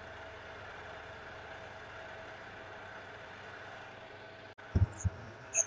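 Small benchtop metal lathe running steadily with a steel workpiece spinning in the chuck: a steady motor hum with a faint whine. Near the end there are two dull thumps and a short metallic clink.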